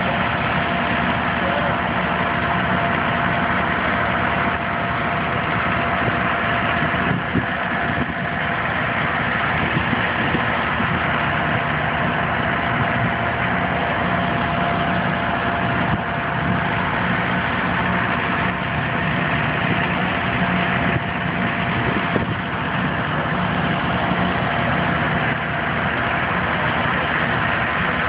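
Fire truck engines idling steadily, with a thin steady hum running over the rumble.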